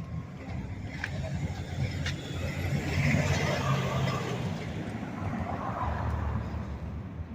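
Street traffic: a motor vehicle passes, its engine rumble and tyre noise swelling to a peak about halfway and easing off, with another low engine rumble shortly after.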